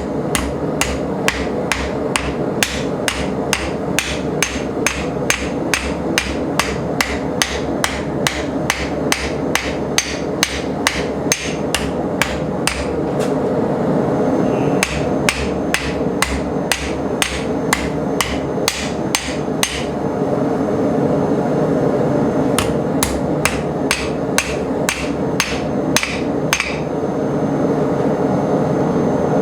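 Blacksmith's hammer striking steel on an anvil, about three blows a second in long steady runs. The hammering pauses briefly about twenty seconds in, resumes, then stops a few seconds before the end, over a steady background hum.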